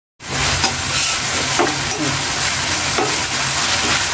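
Onion and spice masala sizzling in oil in a metal pan while a spatula stirs and scrapes through it. It is being fried down until the oil separates, ready for the fish.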